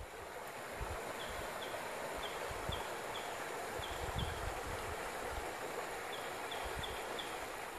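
Shallow creek running over rocks, a steady rush of water. A small bird gives short high chirps in several quick runs, and there are scattered low rumbles.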